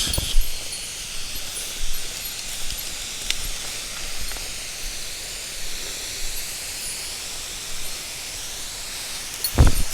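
Mountain stream flowing, a steady rushing hiss of water. There is a low thump just after the start and a louder one near the end.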